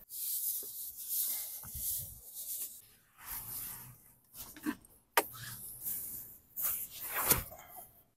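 Rustling and rubbing from things being handled, in short bursts, with a couple of light knocks in the second half.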